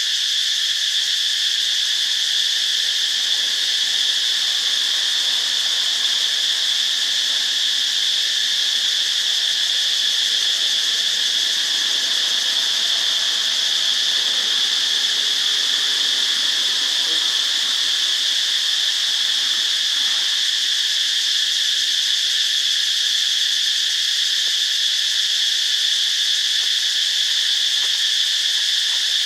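Steady insect chorus, a continuous high-pitched shrill drone that does not break.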